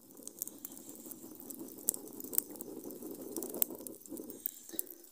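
Glowing embers of a wood fire being fanned to bring them into flame: a steady rush of moving air, with scattered sharp crackles and clicks.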